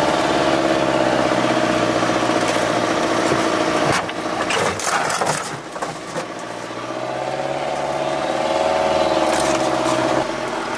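Off-road vehicle's engine running hard as it climbs a muddy track. Around four seconds in it drops away briefly with a few knocks, then the engine note rises and holds again.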